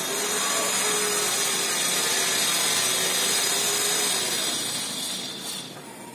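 A power tool running steadily with a hissing noise, dying away about five seconds in.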